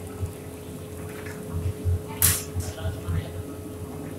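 Working restaurant kitchen: a steady hum throughout, scattered low knocks, and one short sharp noise about two seconds in.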